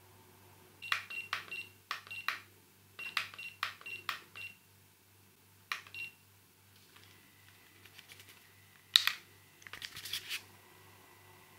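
Handheld infrared thermometer's buttons and trigger pressed again and again: sharp clicks, each with a short high beep, in quick runs through the first half and again a little before the end. A faint steady high tone comes in about halfway.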